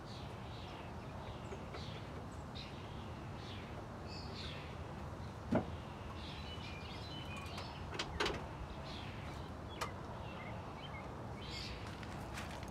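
Small birds chirping on and off, with three short clinks of tools on metal parts in a car's engine bay, the loudest about five and a half seconds in.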